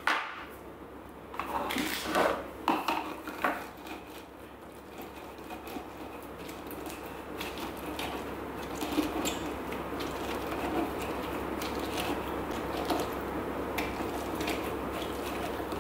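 A few sharp knocks in the first few seconds, then a lemon half pressed and twisted on a hand citrus juicer, a steady wet squishing and grinding from about six seconds in.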